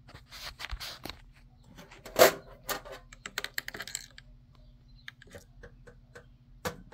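Small plastic and metal parts clicking and rattling as they are handled: a hand moving a small electric motor about inside an opened RC toy's plastic chassis. There is an irregular run of clicks, with one louder knock about two seconds in.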